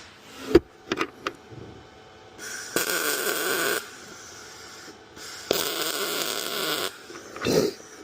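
Two tack welds, each a welding arc crackling steadily for about a second and a half. Sharp clicks come in the first second and a short knock near the end.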